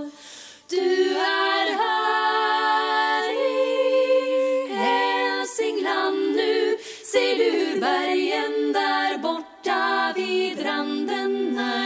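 Unaccompanied a cappella singing: held notes that glide between pitches, starting about a second in, with a couple of short breaks.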